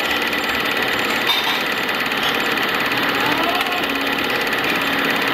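Film projector running, a steady fast mechanical clatter.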